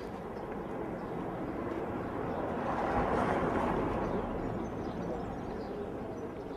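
Busy street noise of traffic and passers-by, swelling about halfway through as if a vehicle goes by, then easing off.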